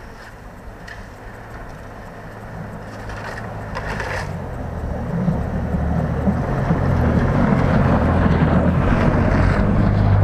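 Short-wheelbase Mitsubishi Pajero 2 driving up a snowy track on off-road tyres, its engine getting steadily louder as it approaches and draws level.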